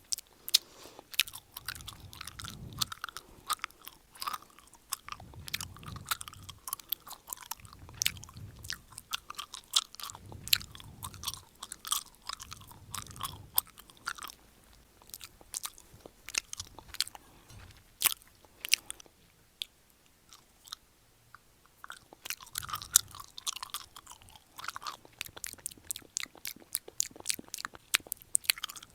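A person chewing gum with the mouth open, making a rapid run of wet smacking clicks, with a short lull about two-thirds of the way through.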